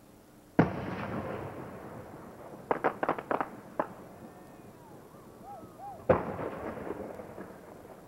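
Aerial fireworks going off: a loud boom about half a second in that echoes and rumbles away, a quick string of sharp crackling reports around three seconds in, then a second boom about six seconds in that also fades away slowly.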